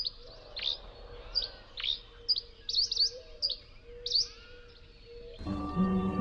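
Small birds chirping: a dozen or so short, sharp calls that slide down in pitch. Background music starts about five seconds in.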